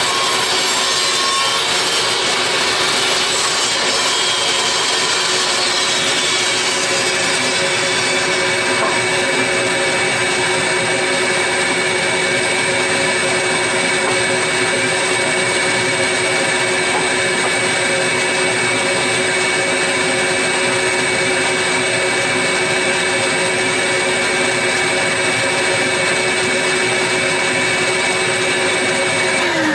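Portable table saw running with a steady motor whine as a wooden board is ripped lengthwise, the cutting hiss heaviest for the first several seconds. Near the end the saw is switched off and its whine falls in pitch as the blade spins down.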